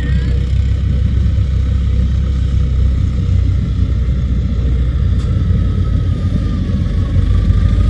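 Rice combine harvester running steadily: a heavy low rumble with a faint, thin whine above it.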